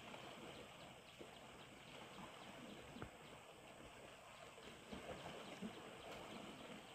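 Faint outdoor ambience: a steady hiss with scattered soft ticks and knocks.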